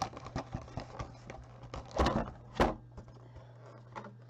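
Pokémon card collection box and its packaging being handled and opened: light crinkling and clicking, with two louder rustles about two seconds in.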